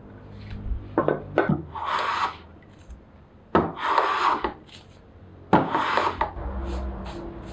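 A hand tool scraping across pine wood in three separate strokes, each about a second long, after a couple of light knocks.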